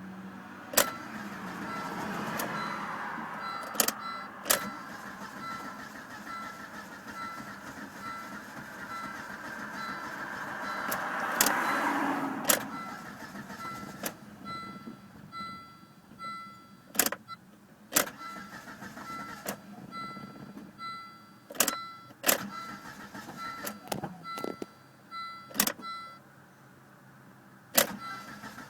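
Volvo S40 being cranked hard to start, two long cranking tries that rise and fade without clearly catching, with sharp clicks scattered throughout. From about halfway in, a beep repeats about twice a second.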